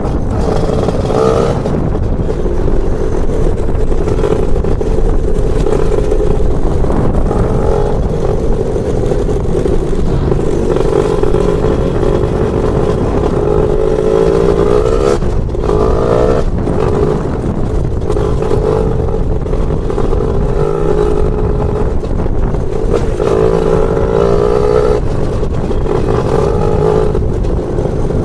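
Lambretta scooter's BFA 325-type two-stroke engine running on the move, its revs climbing in repeated rising pulls and dropping back, as when accelerating.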